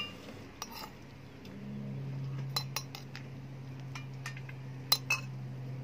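A metal spoon clinking and scraping against stainless-steel cat bowls and a plate as cat food is spooned out: a handful of short, sharp clinks. A low steady hum runs underneath from about a second and a half in.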